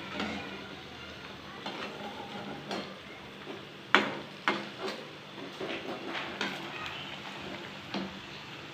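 Bread rolls deep-frying on a low flame in oil in a steel kadai, giving a steady sizzle. A perforated steel skimmer clinks against the pan several times, most sharply about four seconds in.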